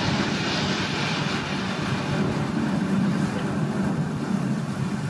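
Steady crowd noise from a live theatre audience: an indistinct low murmur with no clear words.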